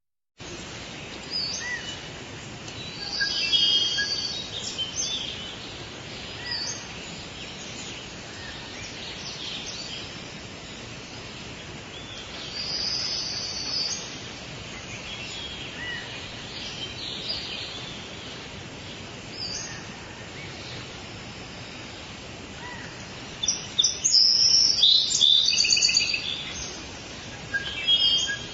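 Tropical rainforest ambience: birds calling and chirping over a steady background hiss. The calls come in louder bouts about three seconds in, around thirteen seconds in, and again from about twenty-four to twenty-seven seconds in.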